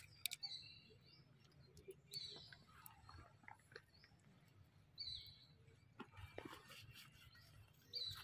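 Faint bird chirps, four short high calls spread a couple of seconds apart, over a quiet background with a few small clicks.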